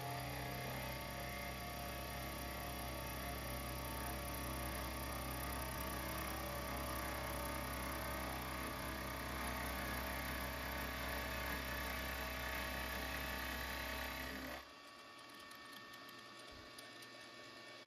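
Milling machine running a 2.5-inch carbide-tipped face mill at about 500 RPM, taking a shallow facing cut across the cast brass sole of a small plane body: a steady motor hum with the cutter's continuous scraping hiss. About fifteen seconds in, the sound drops suddenly to a quieter steady run.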